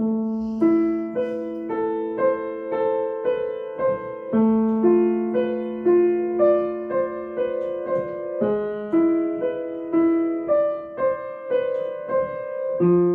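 Piano, left hand alone, played slowly through a short practice passage in A minor: an even stream of single notes, about two a second, over held lower notes.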